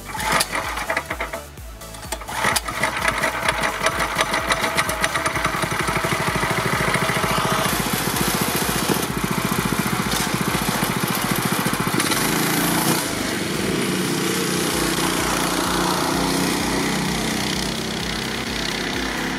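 Stock Predator 212cc single-cylinder four-stroke engine on a go-kart being pull-started, with a couple of loud spluttering bursts before it catches about two and a half seconds in, then running with a fast, even firing beat. About 13 seconds in the kart is driven away and the sound drops a little and changes.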